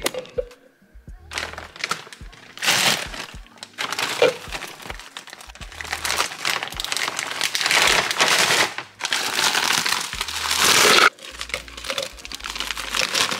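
Plastic bags of frozen sliced strawberries and pineapple chunks crinkling as they are handled and poured, with frozen fruit pieces dropping into a plastic blender cup.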